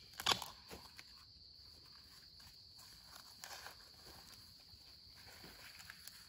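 A sharp crack just after the start as a bamboo shoot is snapped off, then soft rustling and steps in dry leaf litter, over a steady high insect drone.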